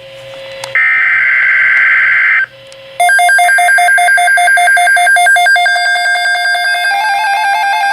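EAS/SAME digital header data burst: a harsh, buzzy screech lasting under two seconds, which marks the start of an emergency alert. From about three seconds in it gives way to rapid electronic alert beeping that steps between several pitches.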